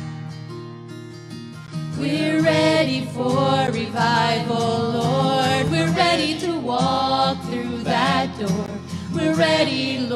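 Acoustic guitar strumming, joined about two seconds in by several voices singing a gospel song together over it.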